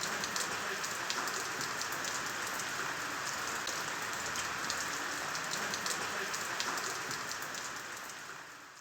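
Steady rain falling on a surface, a dense hiss with many small drop ticks. It fades out near the end.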